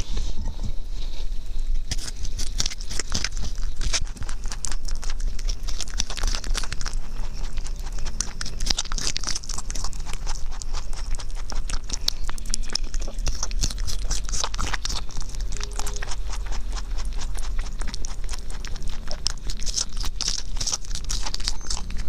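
Rabbit chewing cherries close up at a microphone: a rapid, continuous stream of small crunching clicks.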